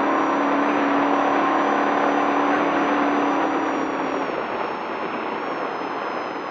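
Desert race truck's engine running hard at steady speed along a straight, mixed with drivetrain and tyre noise. About four seconds in, the steady engine tone fades and the sound drops a little, as if the driver eases off.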